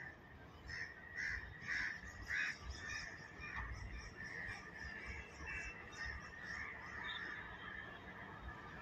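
Crows cawing several times, loudest in the first few seconds, over a low steady rumble from the slowly approaching electric locomotive and its train.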